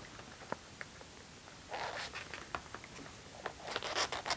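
Plastic cross-member frame of a Parrot AR Drone 2.0 being pushed down into the slots of its foam body: scattered light clicks, with a short scraping rustle about two seconds in and a longer one near the end.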